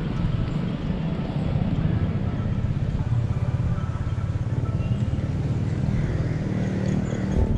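A vehicle engine running steadily with a low, even rumble.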